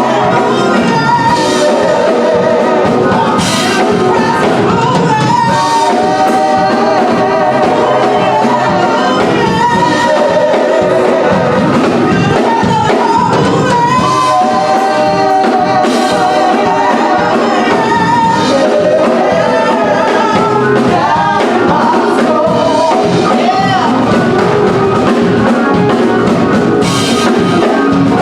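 Gospel song: a church choir singing with instrumental accompaniment, held at a steady, loud level.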